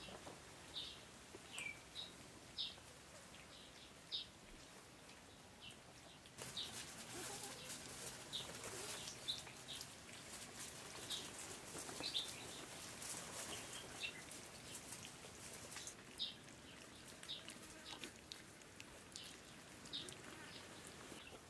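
Short high bird chirps every second or two. From about six seconds in to about sixteen, a stretch of soft wet clicking and lapping from puppies eating mash out of a bamboo trough.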